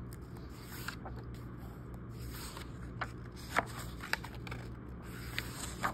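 Pages of a hardcover picture book being turned and handled: a few short paper clicks and rustles over a low steady hum.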